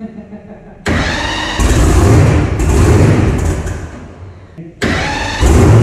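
Supercharged monster truck engine being cranked and started after a rebuild: a sudden starter whine about a second in, the engine catching with a loud low rumble that sags away, then a second crank and the engine firing up again near the end.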